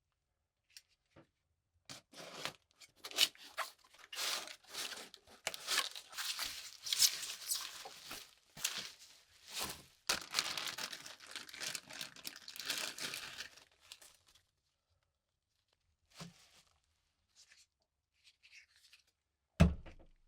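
Crinkly material being handled, with irregular crackling and tearing noise for about twelve seconds, then a single sharp thump near the end.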